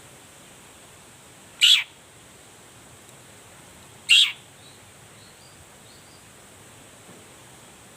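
Long-tailed shrike (cendet) giving two short loud calls about two and a half seconds apart, each sliding down in pitch, with a few faint soft chirps after the second, over a steady hiss.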